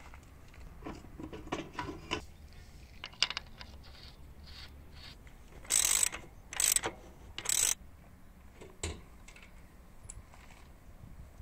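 Hand socket ratchet clicking in three quick bursts as a nut on a motorcycle wheel hub is turned, after a few light metal clinks and knocks.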